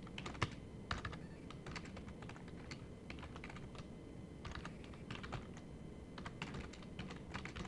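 Typing on a computer keyboard: short, irregular runs of keystrokes with brief pauses between them.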